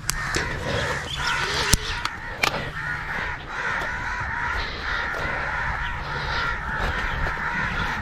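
Many crows cawing together in a continuous background chorus, with two sharp clicks about two seconds in.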